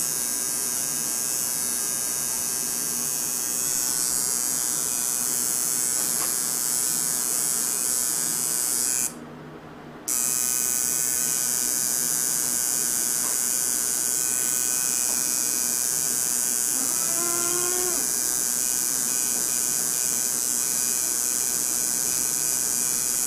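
Coil tattoo machine buzzing steadily as it works the needle into skin. It cuts out for about a second partway through, then starts buzzing again.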